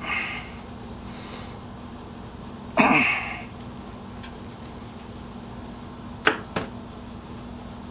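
Hand wiring work over a steady low hum. About three seconds in comes a short, loud breathy snort or grunt from the man working, and near the end two sharp clicks about a third of a second apart.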